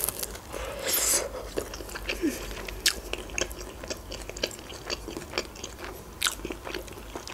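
A bite into a grilled shawarma wrap at the start, then chewing with many short mouth clicks.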